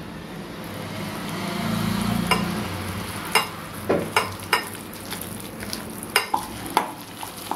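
Gram flour poured onto a wet onion and egg mixture, then a hand squishing and mixing it in the bowl, with a few sharp clicks along the way.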